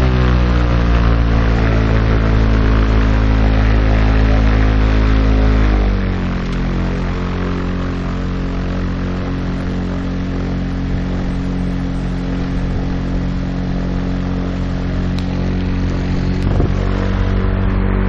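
Light sport aircraft's propeller engine running, heard from inside the cockpit with wind and propeller noise. About six seconds in the engine is throttled back to a lower, steady speed.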